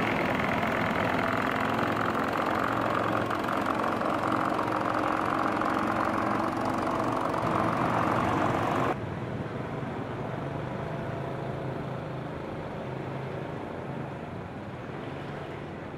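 Engine of a long wooden Mekong passenger boat running steadily as the boat pulls away from the bank. It is loud for about nine seconds, then drops suddenly to a quieter, lower drone.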